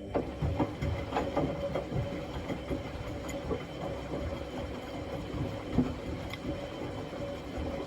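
Logik L712WM20 washing machine running its rinse: a steady motor hum with a continuous run of small, irregular clicks and knocks as the drum turns. The owner takes it to be working normally, with none of the loud bearing noise it was said to have.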